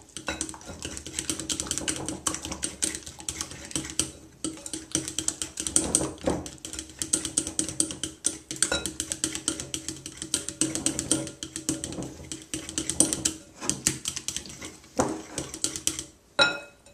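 A table knife stirring thick batter in a glass mixing bowl: rapid, irregular clinking and scraping of metal against glass, with a few harder knocks and a sharp clink near the end.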